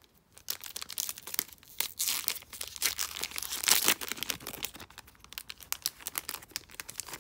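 O-Pee-Chee hockey card pack wrapper being torn open and crinkled by hand: a dense run of crackling, thickest in the middle and thinning to lighter crinkles near the end.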